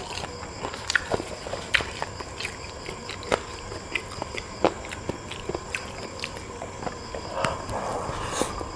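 Close-up mouth sounds of eating: irregular wet clicks and smacks of biting and chewing, with a short rustling, slurping stretch near the end.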